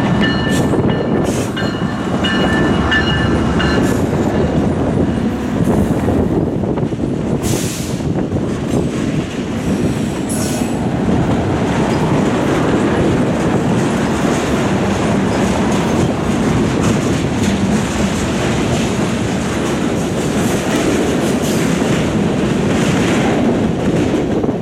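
Freight train passing close by. The three diesel locomotives (a GE ES44AC, a GE C44-9W and an EMD SD60) go by first, then the freight cars follow with a steady rumble and clatter of steel wheels on the rails. A high thin squeal is heard in the first few seconds.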